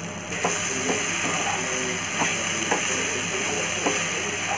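Chopped vegetables and masala sizzling in ghee in a frying pan. The sizzle starts suddenly, and a wooden spatula stirs and knocks against the pan several times.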